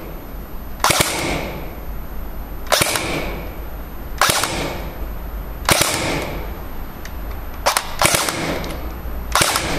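ICS M3 'Grease Gun' airsoft electric gun firing single shots through a chronograph for a velocity test: six sharp shots about one and a half to two seconds apart, with a fainter click just before the fifth.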